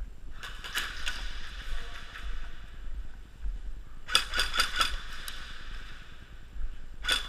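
Airsoft guns firing short volleys of sharp cracks: a burst about half a second in, a quicker string of five or six shots around four to five seconds in, and a couple more near the end.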